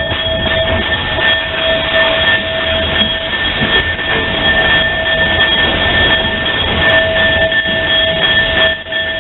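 Steady hiss from an 0-8-0 tank steam locomotive heard from its cab, with a constant high whine running through it as the train rolls slowly; the sound dips briefly near the end.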